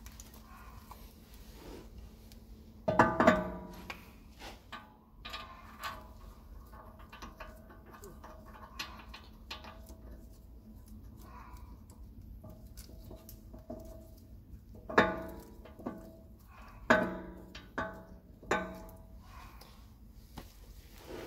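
Sharp metal clanks with a short ringing tail as a steel wheel hub and bearing unit is handled and seated against the steering knuckle. The loudest comes about three seconds in and a group of four follows near the end, with lighter clicks and taps between.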